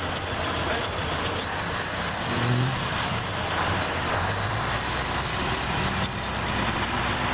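A heavy machine's diesel engine working hard under load, running steadily loud as the machine tries to reverse out of deep mud.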